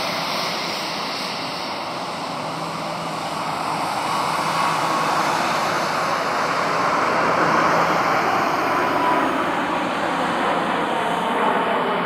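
Airbus A350-900's Rolls-Royce Trent XWB turbofans at take-off thrust as the jet climbs away, a steady, dense jet rush with a faint whine. It grows louder around the middle, and the whine slides lower toward the end.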